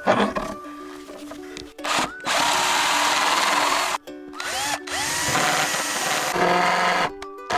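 Cordless drill boring into a wooden board through a pocket-hole jig, running in bursts: a long steady run, a short stop, then a few more short runs, each starting with a brief rising whine as the motor spins up. Quiet background music with plucked notes plays underneath.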